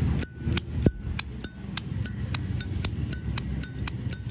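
Brushed-chrome Zippo lighter clinking about three times a second, each click with a clear metallic ring.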